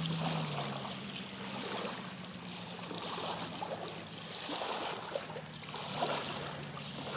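Small waves lapping on a rocky lakeshore in the wind, with a low steady hum underneath.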